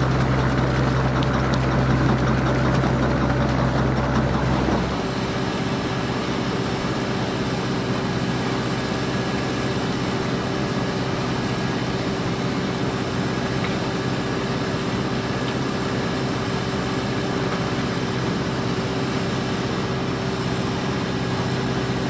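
Grimme Cleanloader potato cleaner-loader running steadily, a deep engine hum under the noise of its conveyors. About five seconds in the deep hum drops away, leaving a lighter steady running noise with a held mid-pitched tone.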